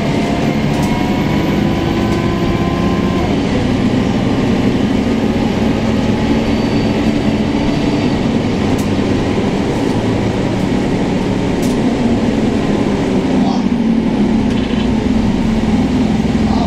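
Interior drone of a Scania K230UB city bus under way: its Scania DC9 diesel engine and ZF automatic gearbox running steadily, with road and body noise and a few light clicks.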